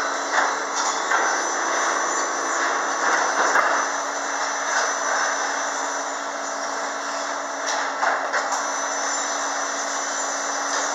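Paver cubing line and sheet inserter machinery running: a steady hum and a thin high whine under a wash of machine noise, with a few short knocks about a second in and again around eight seconds in.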